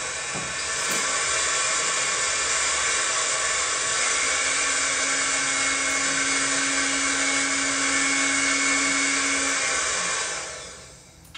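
Dremel rotary tool spinning a Dremelfuge microcentrifuge rotor down inside a stainless steel pot, a steady high-pitched whir. It steps up in speed and loudness about a second in, with a low hum and a higher whine joining around four seconds in. It winds down near the end.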